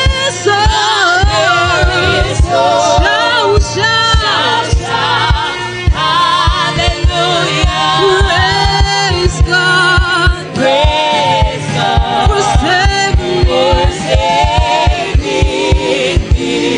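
Gospel worship music: several voices singing with heavy vibrato over a band, with a steady kick-drum beat underneath.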